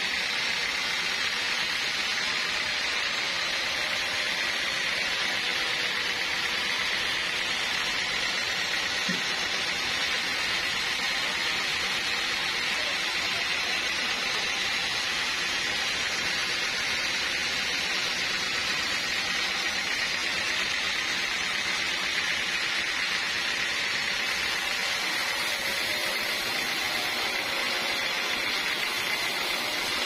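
Sawmill saw running steadily through a large teak log, a constant noise with a high steady whine.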